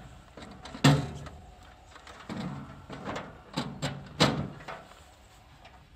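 A control box being fitted back into a barrier housing: clunks and scrapes, the loudest knock about a second in, then a quick cluster of sharp knocks around three to four seconds in.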